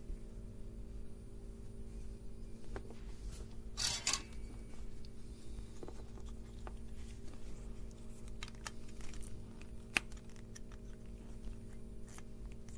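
Small handling sounds of electronics kit assembly on a workbench: a short scraping rustle about four seconds in, a single sharp click near ten seconds and scattered light ticks, over a steady electrical hum.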